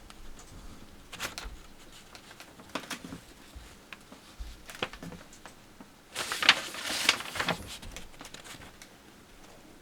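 Paper rustling and light handling taps as a kit's instruction sheet is unfolded and handled. The loudest rustle comes about six seconds in and lasts about a second and a half.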